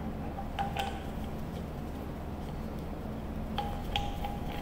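Faint light clicks and ticks from handling the angle grinder and its parts, in two small clusters: about a second in and again near the end. The grinder's motor is not running.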